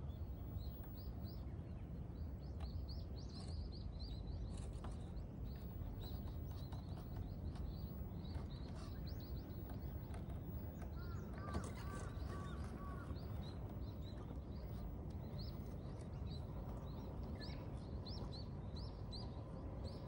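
Steady low outdoor rumble of wind with small birds chirping over it, short rising chirps coming several times a second. A faint brief whine sounds near the middle.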